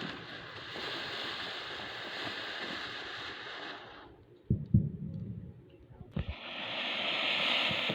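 Ground fountain fireworks spraying with a steady hiss. The first one dies out about four seconds in. After a couple of low thuds, another fountain catches about six seconds in, and its hiss grows louder.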